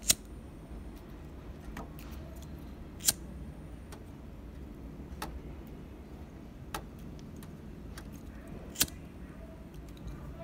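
Handheld flint lighter being struck: sharp metallic clicks a second or more apart, the two loudest near the start and about three seconds in, with fainter clicks later.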